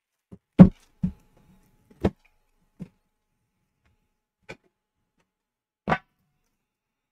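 Metal trading-card tin being handled and opened: about six short, separate knocks and clunks of metal and cardboard, the loudest about half a second in, the last about six seconds in.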